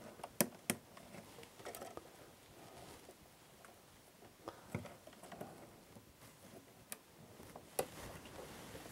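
Faint clicks and rustling of hands working a red plastic suitcase connector onto a bus wire and threading a feeder wire into it. Two sharp clicks come under a second in, and a few more come later.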